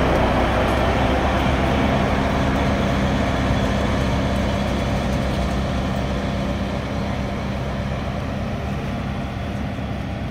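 Diesel engine of a DEMU power car running with a steady low drone, with the train's running noise, slowly fading as the train pulls away.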